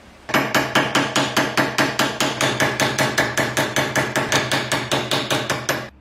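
Hammer blows on metal, struck fast and evenly about five times a second, with a ringing note on each strike. They start suddenly just after the beginning and stop abruptly near the end.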